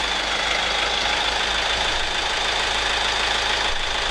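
Machinery running steadily in the background, with a low pulsing rumble and a steady high-pitched tone.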